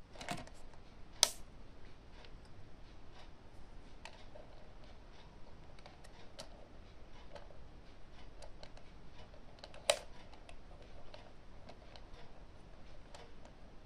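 Scattered faint clicks and light taps, like small objects being handled, with two sharper clicks, one about a second in and one near ten seconds in.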